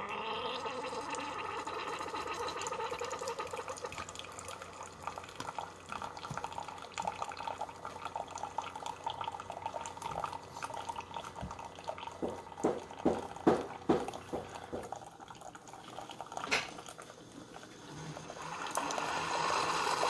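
Keurig K-Cafe single-serve brewer pumping hot water through a K-Cup and pouring a thin stream of coffee into a glass mug, brewing a 6-ounce cup. The brewer starts suddenly at the beginning and runs steadily, with a run of sharp pops about twelve to fourteen seconds in.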